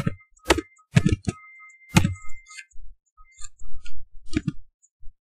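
Computer keyboard keystrokes: about half a dozen separate sharp clicks at an uneven, slow pace, one of the strongest about two seconds in.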